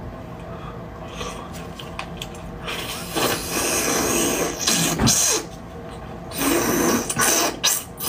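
Loud sucking slurps as beef bone marrow is drawn out of a hollow bone section, in two long pulls: one starting about three seconds in, the other about six seconds in.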